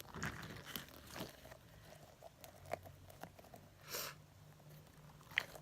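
Sticky toy being handled and pulled apart against the fingers close to the microphone: soft, irregular sticky clicks and crackles, with a short rustle about four seconds in and a sharp click near the end.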